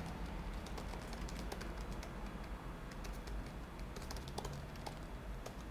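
Typing on a computer keyboard: irregular light key clicks over a faint steady low hum.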